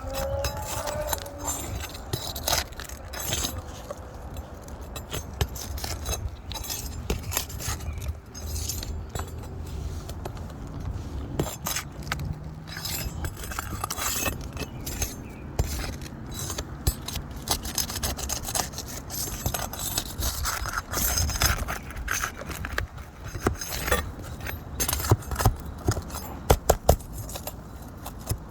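Irregular clinks, clicks and scrapes of small hard objects being handled, with a steady low rumble underneath.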